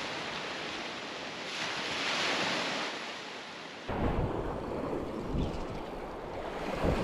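Surf washing on a beach, a wave swelling and fading as a steady hiss. About four seconds in, low rumbling wind on the microphone takes over.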